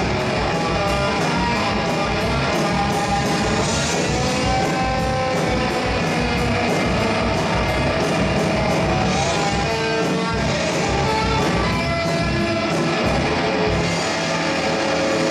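A live rock band playing electric guitars, electric bass and drums, with cymbal strokes about twice a second that stop about a second before the end.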